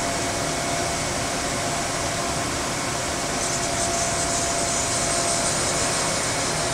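CNC vertical machining center running: a steady mechanical hum and hiss with a faint constant whine, a higher hiss joining in about halfway through.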